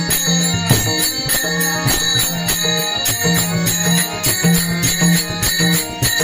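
Instrumental passage of a Warkari bhajan: held reed-organ tones over bright, jingling hand cymbals and a drum keeping a steady beat.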